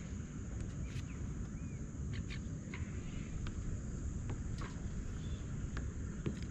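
Outdoor background on open water: a steady low rumble with scattered light clicks and ticks, and one short chirp about two seconds in.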